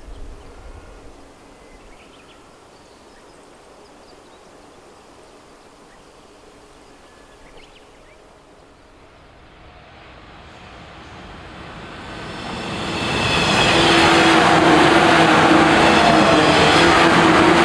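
Faint outdoor ambience, then from about ten seconds in a JNR-era yellow suburban electric multiple unit approaches and passes close by, growing loud and staying loud, with a steady hum and wheel-on-rail noise.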